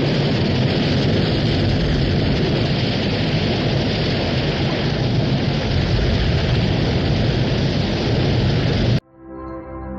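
Loud, dense rush of floodwater surging through a tunnel, a film sound effect. It cuts off abruptly about nine seconds in, and soft sustained music tones follow.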